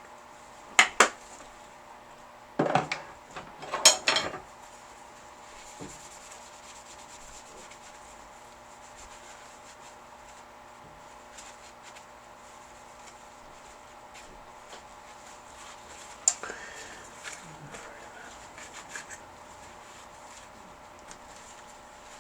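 Tools and small parts being picked up and set down on a workbench: a few sharp knocks and clatter in the first few seconds, then a long quiet stretch, then another sharp knock followed by a few light clicks.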